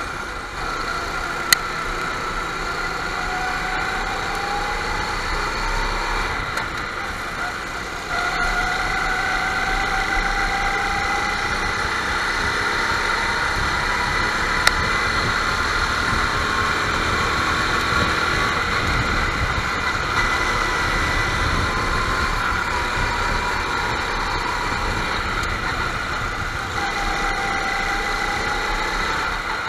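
Several go-kart engines running at once on a racing circuit, their pitch rising and falling over several seconds as the karts accelerate and back off. Two brief sharp clicks, one about a second and a half in and one about halfway through.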